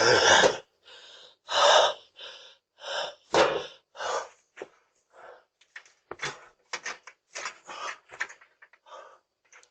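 A man breathing hard and gasping in short noisy bursts close to a doorbell camera's microphone. Thinner clicks and taps are scattered through the later part.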